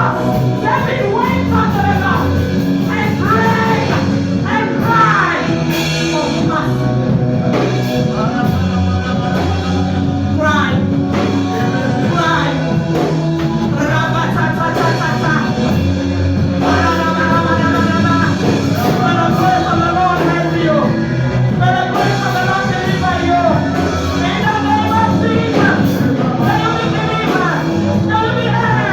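Loud live band music with singing: voices carrying a melody over amplified instruments and a steady beat, in the manner of a church praise song.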